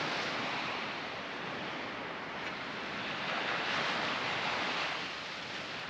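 Surf washing onto the beach, with wind: a steady rush that swells briefly about four seconds in.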